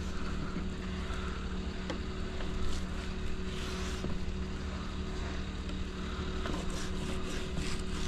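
A steady low motor hum with some wind noise, under the faint scraping of a fillet knife as it slides between a speckled trout fillet and its skin.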